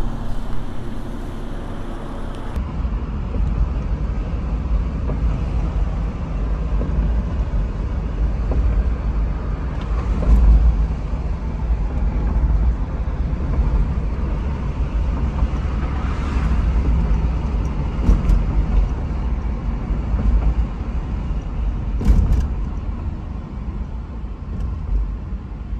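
Inside the cabin of a moving 1996 Toyota Estima Lucinda, a minivan with a 2.4-litre four-cylinder engine: steady low engine and road rumble. The rumble starts about two and a half seconds in, after outdoor sound, and a few short knocks come through it.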